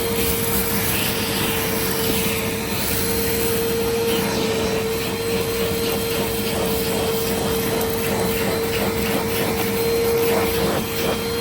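Bissell CleanView compact vacuum cleaner running steadily, its motor giving a constant whine over the rush of air. Small rattling clicks come through, thickening over the last few seconds.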